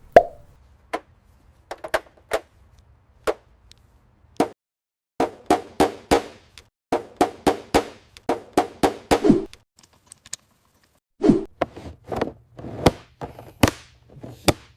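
Irregular runs of knocks and thuds on a car's plastic bumper as the dent is worked out, in quick groups with short pauses between.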